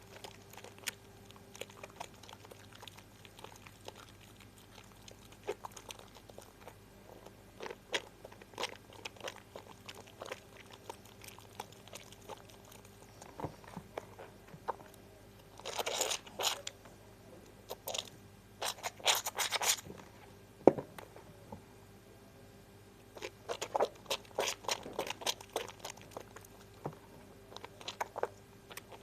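Harmoni lemon soap being lathered with water: wet foam crackling and squishing in short, scattered bursts, busier about halfway through and again near the end.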